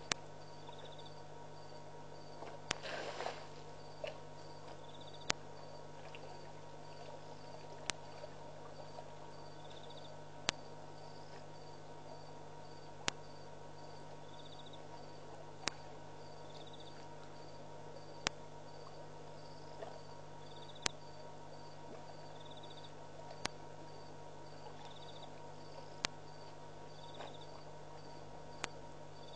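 Crickets chirping steadily in short repeated high pulses, over a steady low electrical hum. Sharp clicks come about every two and a half seconds, and there is a brief noisy burst about three seconds in.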